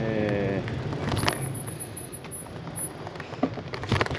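Bicycle on the move: a steady low rumble of tyres and riding noise, with a few sharp clicks and rattles, one about a second in and several near the end.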